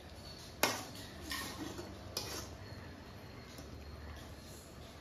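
Metal ladle stirring a thick curry in an aluminium kadai, clinking against the pan three times in the first half, with quieter scraping in between.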